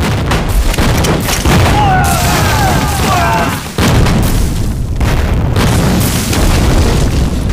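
Hand grenades exploding: a continuous run of heavy, rumbling blasts, with a fresh blast about four seconds in.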